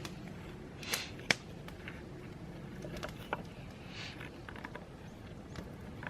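Handling sounds as a wooden bushcraft hook is fitted and lashed with cord: a few light knocks and clicks, the sharpest about a second in, with brief rustles between.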